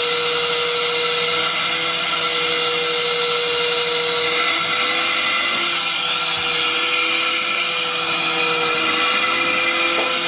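A small electric motor running steadily: a continuous whir with a slightly wavering hum.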